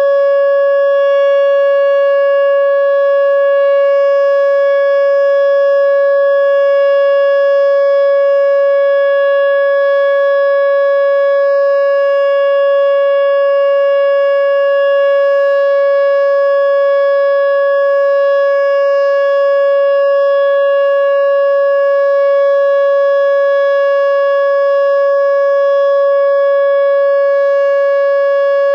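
Whelen Omni-Alert OA4 electronic outdoor warning siren sounding the Alert signal: one loud, steady tone that holds its pitch without rising or falling.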